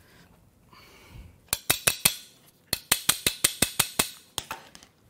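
Sharp metallic taps and clicks from hand tools working on the engine's dipstick tube: a short run of about five, a brief pause, then about a dozen quick ones at roughly six a second.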